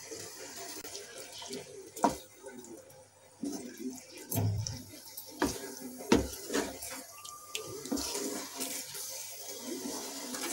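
Paneer cubes being stirred in hot sugar syrup in a pan with a wooden spatula: a low hiss of the simmering syrup, broken by several sharp knocks of the spatula against the pan.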